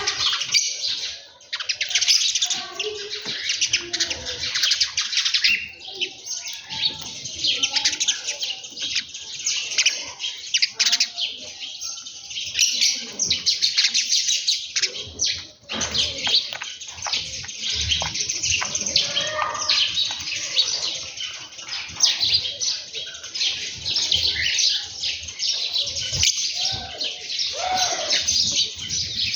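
A flock of small birds chirping continuously at once, a dense overlapping chatter of short high calls, with occasional lower calls mixed in.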